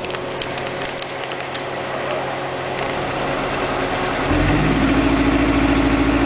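2001 Mitsubishi Galant engine running in drive against the brake with a little throttle, slowly getting louder, then about four seconds in breaking into a heavier, uneven pulsing low rumble. The engine is misfiring under load, which the owner's scan reads, he thinks, as a random multiple misfire.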